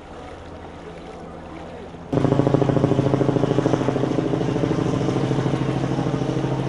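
A low steady hum, then about two seconds in, abruptly, a much louder engine running steadily with an even throb.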